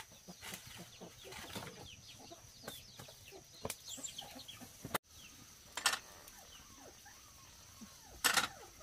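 Chickens clucking, with many short high falling calls throughout and a few sharp loud knocks, the loudest near the end.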